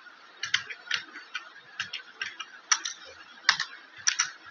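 Computer keyboard being typed on: about a dozen short, irregular key clicks as a phone number is keyed in.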